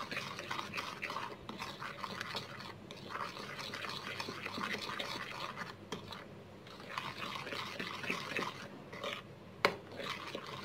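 Metal spoon stirring and scraping a soft paste of butter, powdered sugar and milk in a glass bowl: a steady run of short scrapes and light clicks, with one sharper click near the end.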